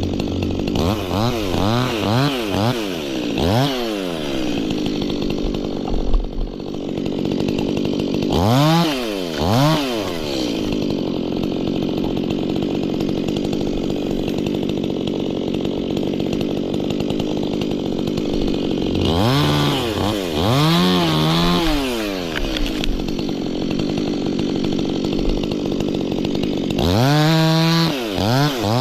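Stihl chainsaw running at idle with repeated throttle revs: a run of quick revs near the start, one about a third of the way in, a cluster about two thirds in and a longer held rev near the end.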